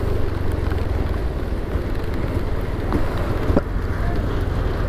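Motor scooter riding slowly through rain on a wet road: a steady low rumble of wind on the camera microphone mixed with the engine, with a few sharp ticks about three seconds in.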